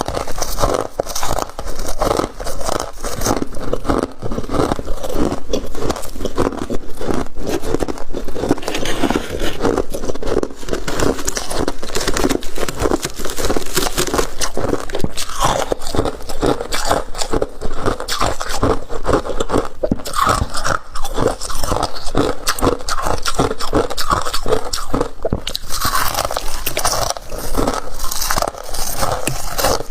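Flaky freezer frost being scraped up by hand and bitten, crunched and chewed close to the microphone: a dense, continuous run of crisp crunches and crackles.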